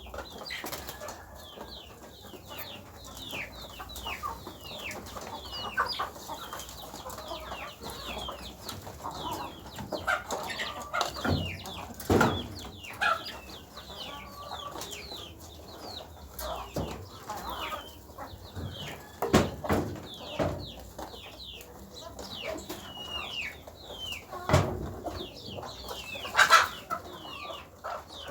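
Chickens calling, with a steady stream of short, high chirps that fall in pitch, and a few sharp knocks that stand out as the loudest sounds.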